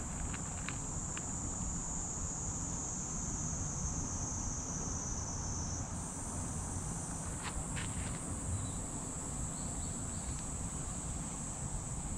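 A steady, high, even chorus of insects, shifting a little higher in pitch about halfway through, over a low rumbling background with a few faint clicks.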